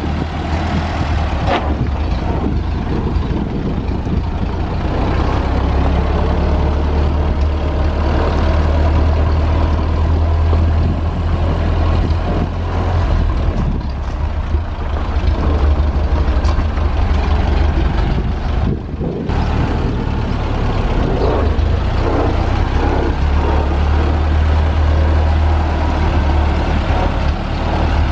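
1930 Ford Model AA truck's four-cylinder flathead engine running steadily as the truck moves slowly under its own power. The engine note briefly falls away about two-thirds of the way through, then picks up again.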